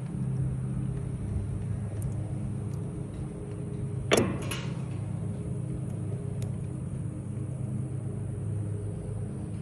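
Aermotor water-pumping windmill clunking: one sharp metallic clunk with a short ring about four seconds in, then a lighter knock just after, over a steady low rumble.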